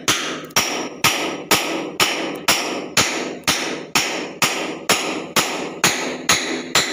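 Hammer blows at a steady pace, about two a second, each strike sharp and ringing briefly.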